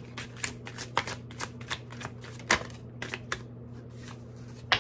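A deck of tarot cards being shuffled by hand: a quick run of crisp card snaps for about two seconds, then sparser ones, with a louder snap about halfway through and another at the end.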